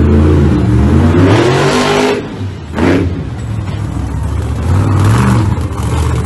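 Monster truck engine revving and easing off, its pitch rising and falling, with a short sharp burst of noise about three seconds in.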